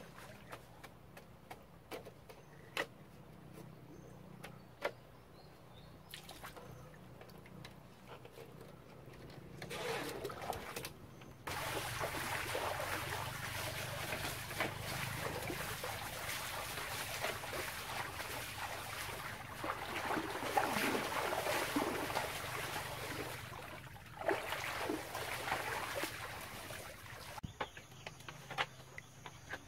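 Scattered light clicks and knocks of bamboo slats being handled. Then, about eleven seconds in, a long stretch of water splashing and sloshing as someone wades through waist-deep river water. It eases off again near the end into a few more clicks.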